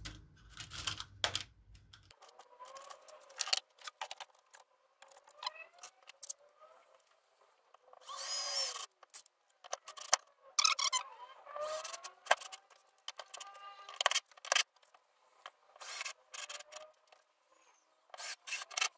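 Cordless drill-driver driving screws through washers into a board in short bursts of varying length, its motor whine rising in pitch as it spins up each time, with sharp clicks and knocks between the bursts.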